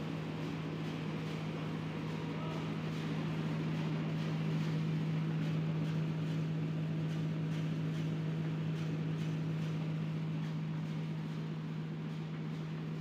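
Gram-flour (besan) milling plant machinery running: a steady hum with a strong low tone under a broad whirring noise.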